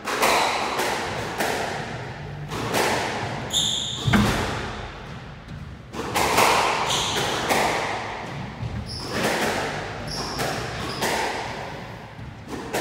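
Squash rally: the ball cracking off rackets and the court walls every half second to second and a half in an irregular rhythm, each hit echoing in the enclosed court, with short shoe squeaks on the wooden floor between shots. A heavier thud comes about four seconds in.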